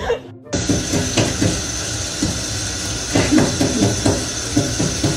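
Tap water running steadily into a stainless steel sink, a constant hiss that begins suddenly about half a second in, with short irregular clicks over it.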